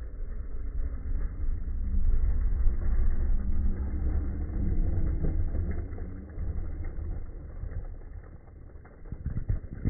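Electric Traxxas X-Maxx RC monster truck driving over loose gravel, a rumbling noise that grows louder a couple of seconds in and then fades as it moves away.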